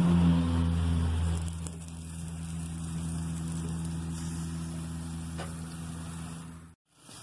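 A steady low motor hum, loudest for the first second and a half, then running on more quietly until it cuts off abruptly near the end, over a faint hiss of meat cooking on a charcoal grill.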